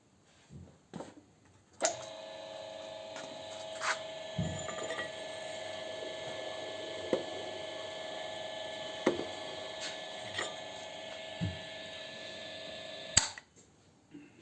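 Boring machine for a YaMZ-236 connecting rod's small-end bushing, switched on with a click about two seconds in. It runs with a steady hum and a few knocks for about eleven seconds, then cuts off suddenly with another click.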